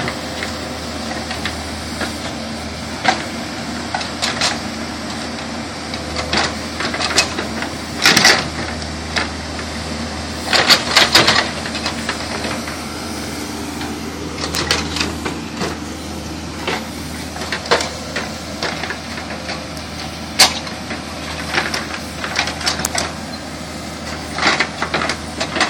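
Backhoe engine running steadily while the machine pushes dirt into a stump hole, with scattered knocks and clanks from the bucket and linkage, a cluster of them about ten to eleven seconds in.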